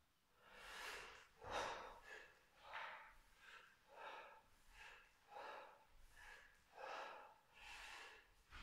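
A man's short, quiet breaths in and out, about one every two-thirds of a second, keeping time with bodyweight squats.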